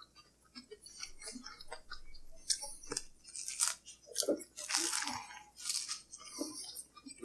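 Biting into and chewing BLT sandwiches with crispy bacon: irregular small crunches and mouth noises.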